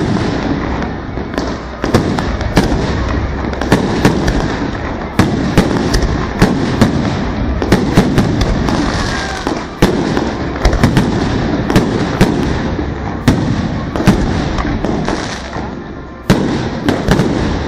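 Fireworks display going off nonstop: a dense, loud din of bursts with many sharp bangs, several a second. There is a brief lull near the end before another loud bang.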